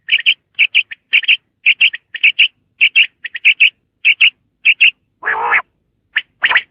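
Common quail calling: sharp, high notes repeated in quick pairs and triplets, a group about every half second. About five seconds in comes one longer, lower, rougher sound.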